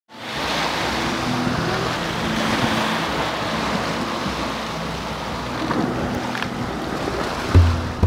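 Ocean surf washing in a steady rush that fades in at the start. A single low thump comes near the end.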